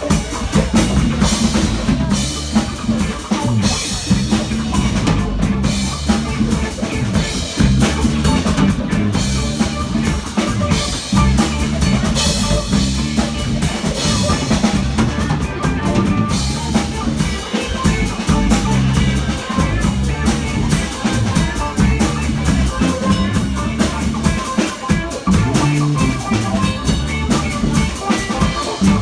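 A live band playing, with a full drum kit keeping a steady beat under the music; the bass drum and snare stand out.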